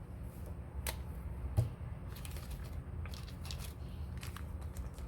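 Small clicks and rattles of jewelry pieces and tools being handled on a work table, with one sharper knock about a second and a half in and a quick run of light clicks in the second half, over a low steady hum.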